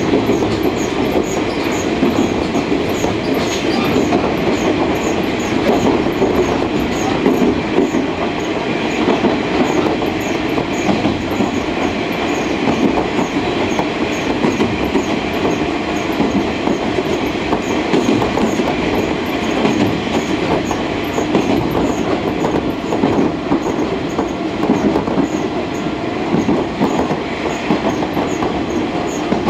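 Steady running noise heard inside a JNR KiHa 47 diesel railcar on the move: the underfloor diesel engine and the wheels rolling on the rails.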